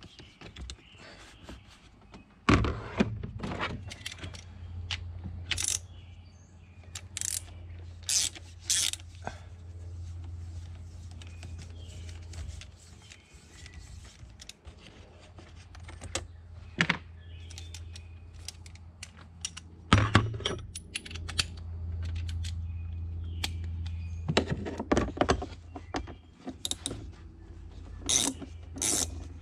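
Scattered clicks, clinks and knocks of hand tools and plastic air-intake parts as the air filter housing is unbolted and worked loose under the hood. A steady low hum runs beneath, stopping for a while in the middle.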